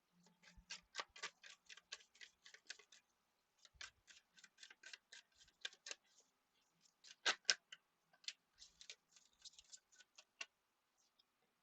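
Tarot cards being shuffled and handled: faint, quick runs of sharp card clicks and flicks with short pauses between them.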